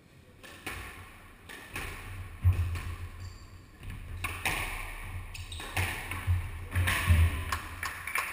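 Squash rally: the ball cracking off the rackets and walls and bouncing on the court, in sharp irregular hits, with the players' footfalls thudding on the wooden floor.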